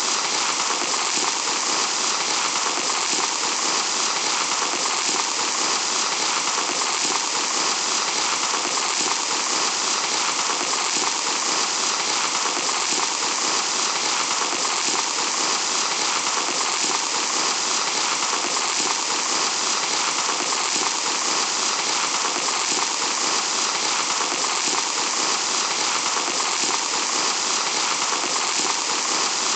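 Fine sand pouring through an hourglass in a steady, even hiss with no breaks.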